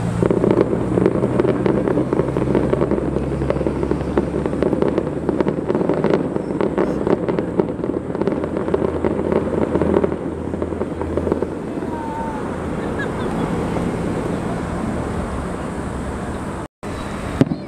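Fireworks barrage heard from a distance: a dense, continuous rumble of crackling bursts for about ten seconds, which then eases off, over a low steady hum. A single sharp bang near the end.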